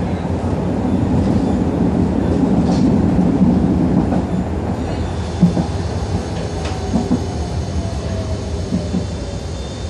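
Moderus Gamma low-floor tram running, heard from inside the car: a steady rumble of wheels on the rails with a few sharp knocks from the track. Through the second half a whine falls steadily in pitch as the tram slows.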